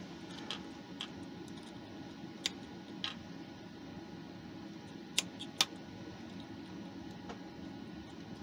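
A few small sharp clicks and taps of a soldering iron and wires being handled at a loudspeaker's solder terminals, the two loudest close together about five seconds in, over a steady low background hum.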